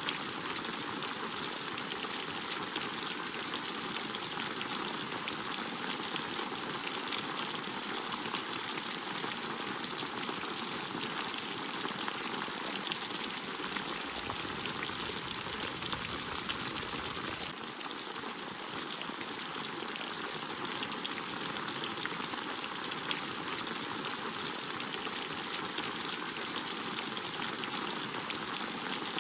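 Steady rain falling, with many small drop ticks through an even hiss. The level dips slightly about halfway through, then carries on unchanged.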